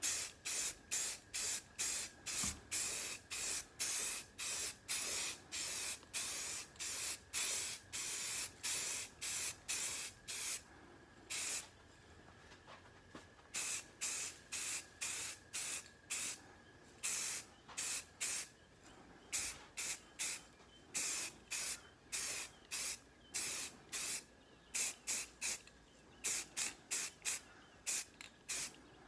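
Aerosol can of Rust-Oleum 2X flat grey spray paint hissing in short bursts, about two a second, as a coat goes on, with a couple of longer pauses partway through.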